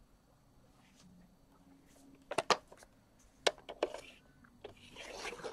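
Paper trimmer with a scoring blade being worked on cardstock: a few sharp plastic clicks from the blade carriage and track, the loudest about two and a half seconds in. Near the end comes a rising scraping slide of the cardstock across the trimmer.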